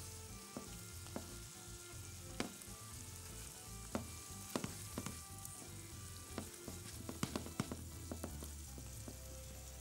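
Sausage, onion and garlic sizzling in a frying pan, a faint steady hiss, with the spoon clicking and scraping against the pan many times as it is stirred.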